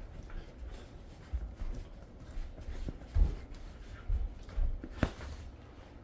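A dog tugging at and mouthing a plush lion toy on a carpet: scuffling and fabric rustling with irregular dull thumps, and a sharp click about five seconds in.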